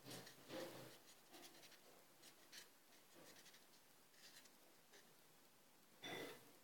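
Black marker pen drawing on paper taped to a wall: faint, short, irregular scratching strokes, with a louder scuff about six seconds in.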